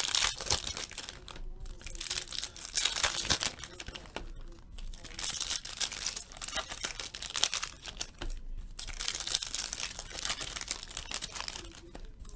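Foil wrapper of a 2014 Bowman Chrome Football card pack being torn open and crinkled in the hands, in several bursts of crackling with short lulls between.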